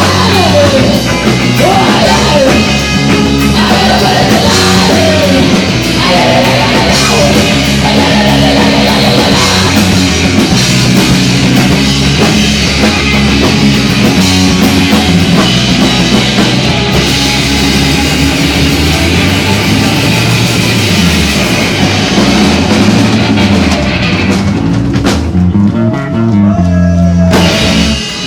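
Rock band playing loud and energetic, with drum kit, guitars and bass; the cymbals drop out over the last few seconds as the song winds down.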